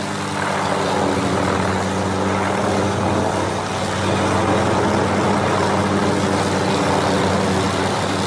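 Helicopter carrying a suspended aerial tree-trimming saw, a vertical boom of spinning circular blades, running steadily as the blades cut through treetop branches. It is a steady hum made of several evenly spaced tones, growing a little louder about a second in.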